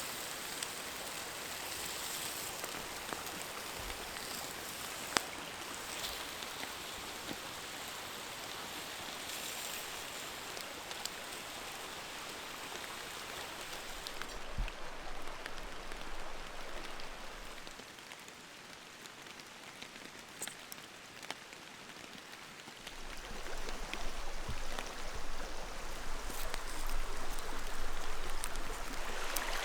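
Steady rain falling, an even hiss with scattered sharp drop ticks. It dims for a few seconds in the middle, then a louder rush of water noise builds in the last several seconds.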